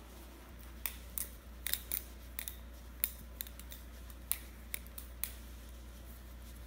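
BRS Barebone 2.0 balisong (butterfly knife) being flipped: its handles and blade click and clack in quick, irregular strokes, about a dozen light clicks.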